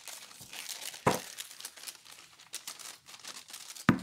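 Thin plastic packaging bag crinkling and rustling as it is handled and pulled off. Two sharp knocks sound about a second in and near the end.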